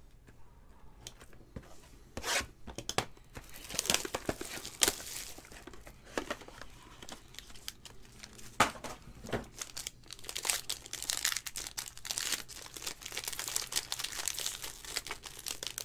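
Foil wrapper of a trading-card pack being torn open and crinkled by hand: scattered sharp tears and crackles, coming thicker in the last few seconds.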